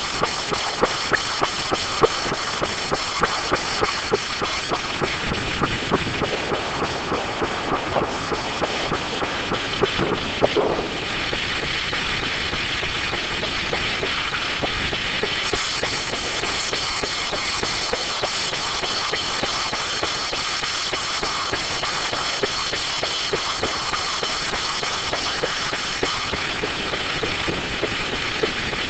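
StrojCAD D9 circular sawmill running: a steady mechanical din with frequent rattling clicks for about the first ten seconds, after which it settles into a smoother steady noise.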